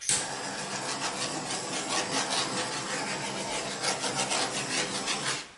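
Handheld torch flame hissing steadily as it is passed over wet acrylic paint on a canvas; it starts suddenly and cuts off near the end.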